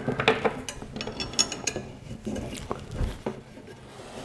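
Irregular light metallic clicks and clinks of small steel parts being handled as quarter-20 bolts are fitted into the top cap of an all-steel broadfork.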